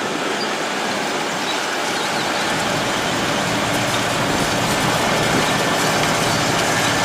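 Steady rushing hiss of a jet of water washing mud off a toy tractor. It starts and stops abruptly.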